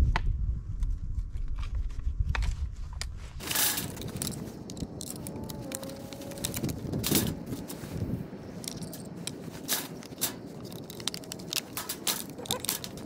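Handling noises from working on a Husqvarna 55 Rancher chainsaw by hand: scattered clicks, rattles and crunching as its cover comes off over packed gunk, after a low rumble for the first three seconds or so.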